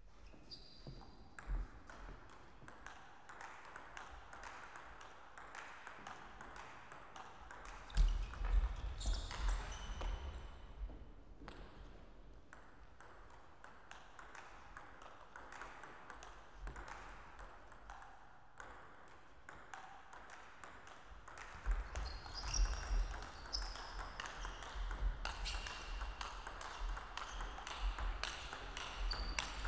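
Table tennis rallies: the ball clicking sharply off the paddles and the table, with short ringing pings and low thuds. One rally comes about 8 seconds in and lasts a few seconds; another starts about 22 seconds in and is still going at the end.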